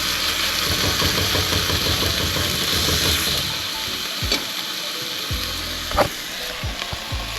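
Beef fillet searing in hot olive oil in a pan, a steady sizzle, with a few sharp knocks of a utensil against the pan, the loudest about six seconds in.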